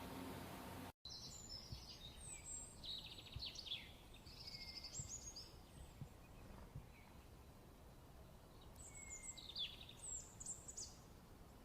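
A songbird singing faintly in phrases of high, rapid notes and short trills. There is one burst of song in the first few seconds and another after a pause of about three seconds.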